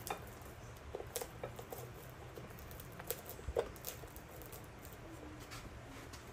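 A flat metal blade prying a soft foam Vibram Morflex sole off a leather boot's welt, giving faint scattered ticks and short crackles as the glued foam is peeled away. The louder crackles come a little after one second in and again around three to three and a half seconds in.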